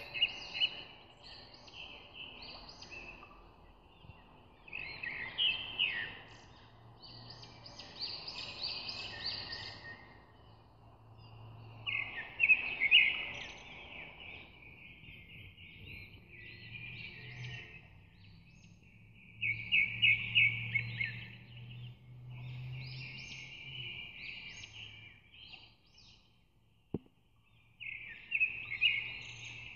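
Birds chirping and singing in a string of quick, high trilled phrases a second or two long, with short pauses between them, over a faint low hum.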